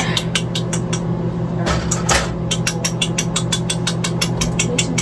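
Rapid, irregular clicking, several sharp ticks a second, over a steady low hum.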